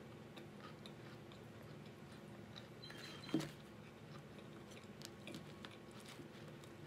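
Quiet chewing of chicken pot pie, with small clicks and scrapes of a metal fork in an aluminium foil pie tin. There is one louder knock about three seconds in, over a faint steady low hum.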